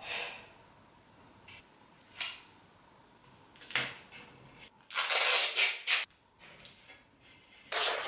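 Adhesive tape being ripped off its roll right at the microphone, in two loud rasping pulls of about a second each, the first about five seconds in and the second near the end. A few sharp handling clicks come before them.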